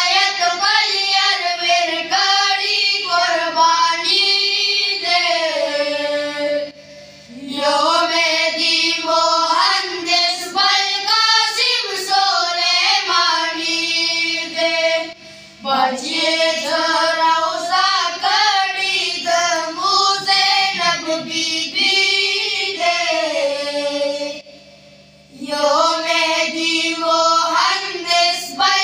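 Boys singing a Pashto tarana in unison into microphones, in long held lines that break briefly three times.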